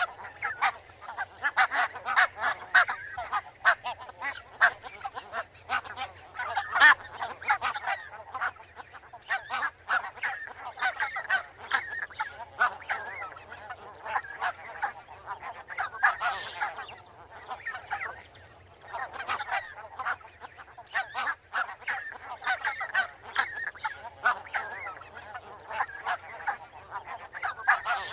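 A flock of barnacle geese calling: many short, yapping honks overlapping one another without pause.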